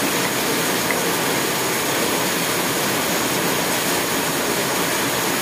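Steady, even rushing noise with no rhythm or clear pitch.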